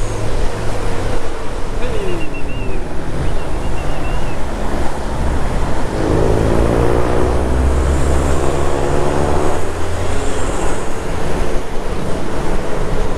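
Wind rushing hard over the microphone on the roof of a moving bus, over the low rumble of the bus's engine and road noise. A louder pitched drone swells about six seconds in and fades about four seconds later.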